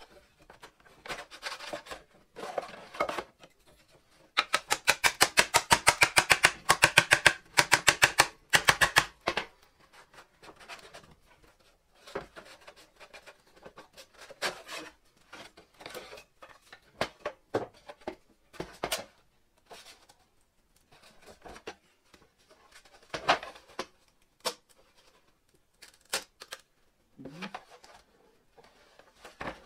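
A fast, even run of sharp hammer taps, about six a second, lasting about five seconds from about four seconds in: a wooden wedge being driven between two glued plywood panels to split them apart. Before and after are scattered knocks and scrapes of wooden pieces handled on a workbench.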